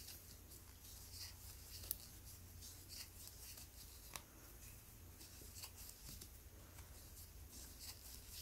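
Near silence, with a few faint, scattered ticks and rustles from a metal crochet hook drawing yarn through single crochet stitches.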